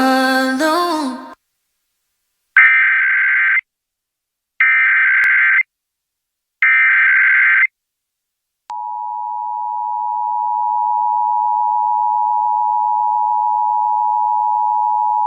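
A song on a radio broadcast cuts off, then the Emergency Alert System's SAME digital header sounds as three one-second bursts of harsh data tones, two seconds apart. From about nine seconds in comes the steady two-tone EAS attention signal (853 and 960 Hz sounded together), which marks the start of a required monthly test alert.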